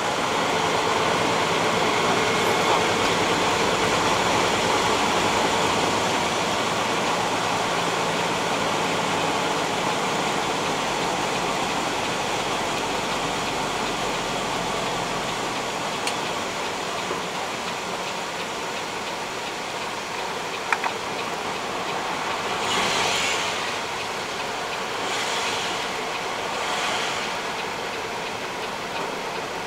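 Steady cab noise of a Peterbilt 379 semi truck driving on a wet road in the rain: diesel engine drone mixed with road and tyre noise, slowly getting quieter over the first half. A short click comes about 21 seconds in, and three swells of hiss near the end.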